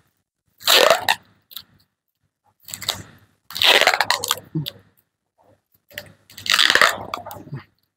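Plastic packing tape crackling as it is pulled and wrapped by hand, in four bursts of about a second each with short pauses between.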